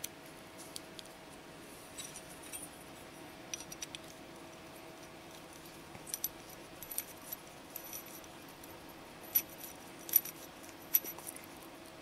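Faint small metallic clicks and ticks of a T-handle driver turning small screws that fasten a pocket clip into a folding knife's metal frame, with a few sharper clicks near the end.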